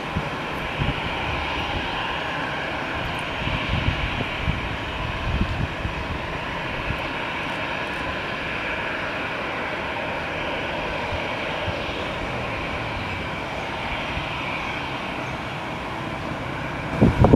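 Jet engines of an Airbus A320-214, CFM56-5B turbofans, running with a steady rushing whine and a low rumble underneath.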